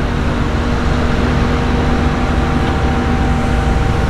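Steady hum of running engines over a constant rush of traffic-like noise, with a few held tones; the lowest tone fades out near the end.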